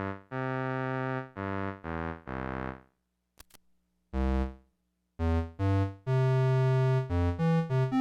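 Yamaha PS-20 electronic keyboard playing held notes and chords on its built-in voices. The playing stops about three seconds in, two faint clicks follow, and the notes resume about a second later, louder and deeper.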